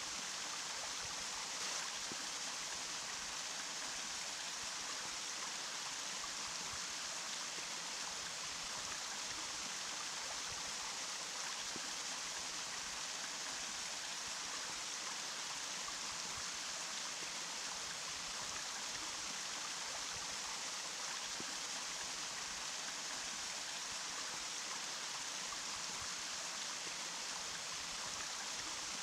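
Running water flowing steadily: an even, unbroken rushing hiss that does not change.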